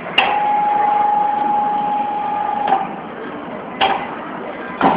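A steady machine whine at one pitch that starts with a sharp click and cuts off with another click after about two and a half seconds, followed by two more clicks over a constant noisy hum.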